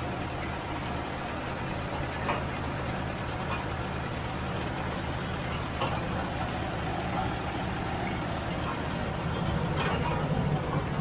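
Crawler water well drilling rig running while it drills, a steady low engine drone with a rapid even pulse. It grows somewhat louder about nine seconds in.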